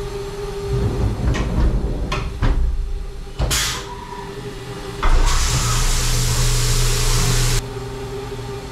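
A CNC machining center working on an aluminum LS engine block: a steady machine hum with a few sharp clicks and knocks, a short hiss, then a loud steady hiss for about two and a half seconds that cuts off suddenly.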